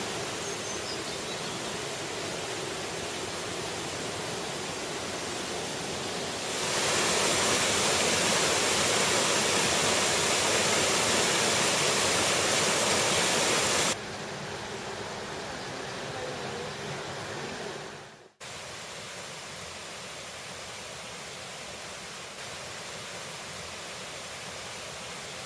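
Steady rush of a river and waterfall. It gets much louder about a quarter of the way in, drops back a little past halfway, and cuts out briefly about three-quarters through before going on steadily.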